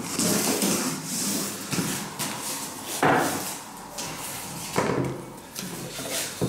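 Knocks, scrapes and clatter of tools being handled: an aluminium guide rail and a cordless circular saw set onto a door, with a vacuum hose dragged about. There is a loud swish about three seconds in and a sharp knock near five seconds; the saw is not running.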